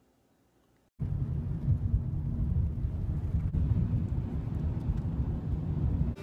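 Near silence for about a second, then a steady low rumble of road noise inside a moving car's cabin, on a wet road in the rain.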